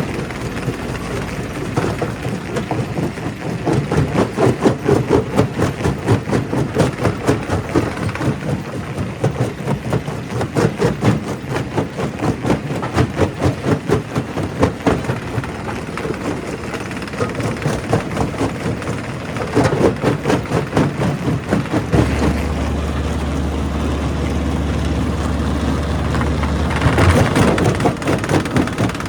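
Primary rock crusher breaking stone: rapid, uneven knocking and clattering of rock against the crusher. A steady low hum joins about two-thirds of the way through, and there is a brief louder rush near the end.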